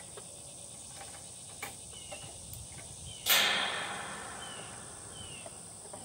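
A plastic pet carrier's wire door being shut with one sharp clatter about three seconds in, ringing briefly as it fades, after a couple of small clicks. Under it, a steady high insect drone and a few short falling bird chirps.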